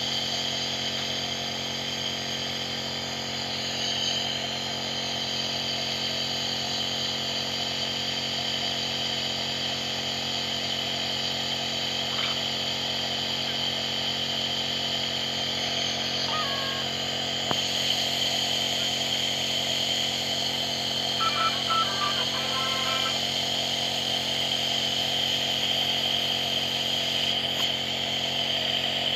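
Compressor nebulizer running steadily: an even motor hum with a hiss of air and mist.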